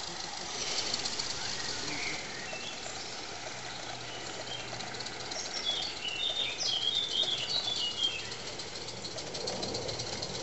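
A small songbird chirping in a quick run of short notes for a few seconds from about halfway through. Underneath is the faint, rapid ticking of a garden-scale model train running on its track.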